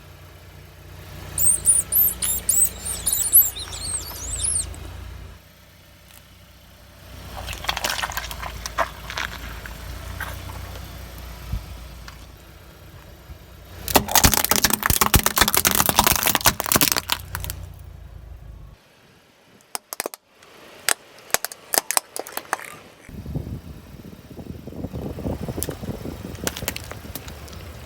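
A car's tyres crushing a series of objects over a low engine rumble: fine high crackling, then bursts of crunching noise, a loud dense burst of crushing and spraying noise midway, and later a run of sharp snaps and clicks.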